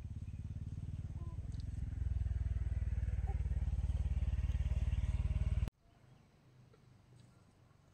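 A small engine running steadily with a fast, even pulse, growing louder about two seconds in, then cutting off abruptly more than halfway through, leaving only faint background.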